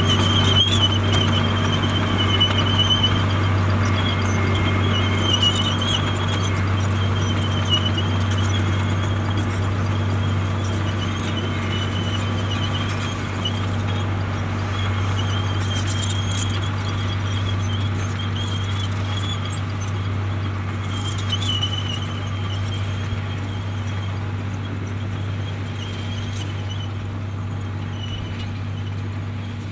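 Komatsu D58E crawler dozer running steadily under work, with a high-pitched metallic squeal that comes and goes over the engine drone. The sound slowly gets quieter.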